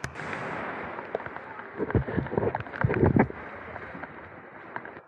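Surf washing up the sand around the camera, a rushing hiss that slowly eases off, broken by a few loud thumps on the microphone about two and three seconds in.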